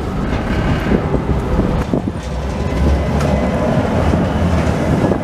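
Oslo tram running on its rails: a steady low rumble of wheels on track, with a few sharp clicks over the rail.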